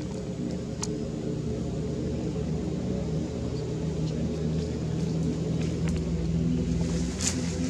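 A steady low motor-like rumble with a droning hum, a few faint clicks over it, and a brief sharper noise near the end.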